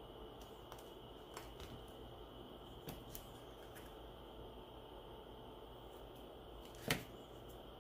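Small hobby scissors snipping once through a strip of glow-in-the-dark tape, a short sharp snip near the end, after a few faint clicks of the tape and tools being handled.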